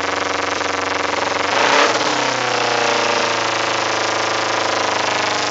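2008 Kawasaki Ninja 250R's parallel-twin engine, fitted with a Dan Moto aftermarket exhaust, running at a high idle. It revs up briefly about two seconds in, then settles back and hangs at about 3,000 rpm instead of dropping to a normal idle. The owner takes this for a carburettor running rich that needs rejetting.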